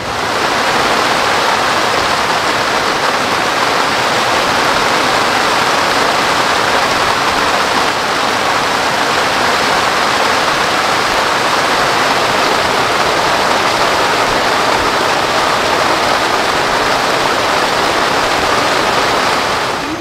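Loud, steady, even roar of rushing water in torrential rain.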